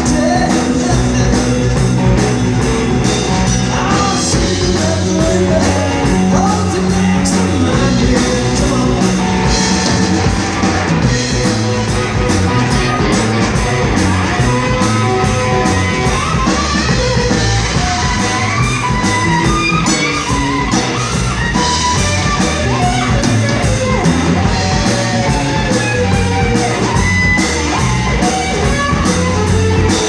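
Live rock band playing: electric guitars over a drum kit keeping a steady beat with regular cymbal hits.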